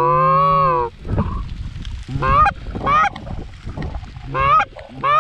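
Hand-blown goose call honking: one long held note about a second long, then four short two-note honks that break from a low note up to a high one, calling to incoming geese.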